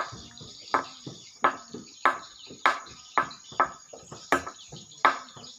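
Swiftlet calls: short sharp chirps repeating in a very regular rhythm, about two a second.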